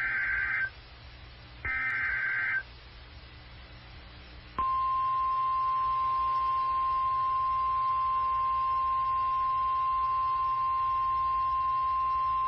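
Emergency Alert System SAME header data: the last two of three short, buzzy digital bursts about a second apart. About four and a half seconds in, the steady single-pitched 1050 Hz NOAA Weather Radio warning alarm tone starts and holds, signalling a severe thunderstorm warning.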